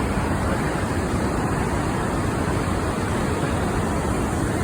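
Steady rushing roar of water pouring over the man-made falls on the Snake River, an even noise without breaks.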